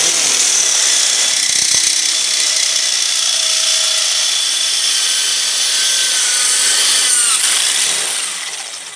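Electric hand drill running at full speed, turning a long spindle shaft through a bearing block on a homemade drilling machine. A steady high whine that starts suddenly and winds down near the end as the drill is let go.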